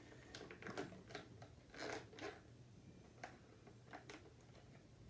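Faint crinkling of a clear plastic packaging bag as fingers pull and pick at it, trying to tear it open by hand: a scattered string of short crackles and clicks.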